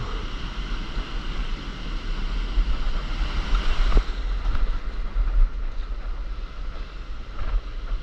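Broken surf rushing and fizzing around a camera held just above the water, with wind buffeting the microphone. A single sharp knock about four seconds in.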